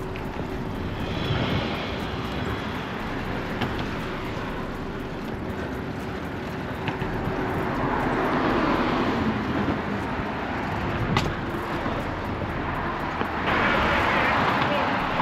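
Wind rush and tyre noise from riding an electric bike at speed along a paved walkway, with no voice. The rushing grows louder about eight seconds in and again near the end.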